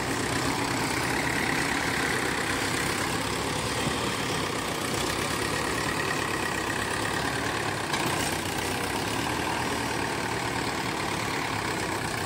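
Diesel tractor engines running steadily under load: a Mahindra tractor working a loaded sugarcane trolley out of soft field ground, with a second tractor pulling it on a tow rope.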